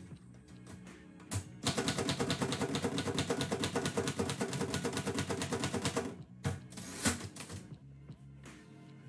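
Typewriter keys struck in a fast, steady run of keystrokes lasting about four seconds, followed by two separate strikes. Music plays underneath.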